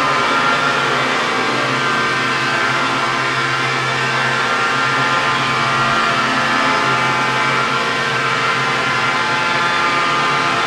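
Quadcopter drones hovering, their rotor whir mixed with steady humming tones from fan-blown accordion reeds mounted on them, which together sound a chord built on fifths. The tones hold steady throughout, with the pitches shifting slightly as the drones move.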